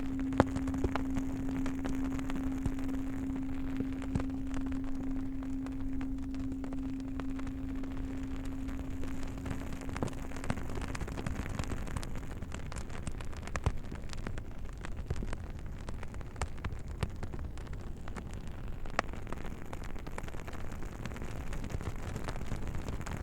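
Campfire crackling, with many sharp pops and snaps over a steady hiss. A low singing bowl's steady hum fades out about halfway through.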